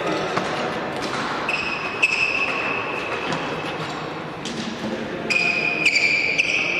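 Badminton shoes squeaking on a synthetic court mat during lunges to the net, twice in squeals about a second long, with sharp taps of a racket on shuttlecocks in between, in a reverberant sports hall.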